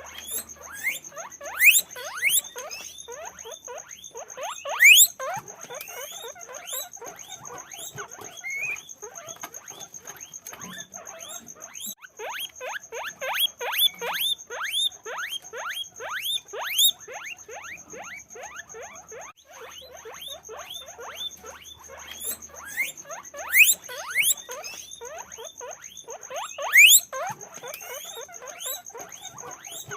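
Guinea pigs squeaking over and over in short rising calls, several a second, with a few louder squeaks standing out. A thin steady high whine runs underneath.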